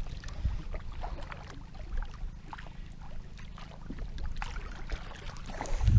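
Small waves lapping and splashing against the hull of an outrigger boat as it rocks at rest, with a steady low wind rumble on the microphone that swells near the end.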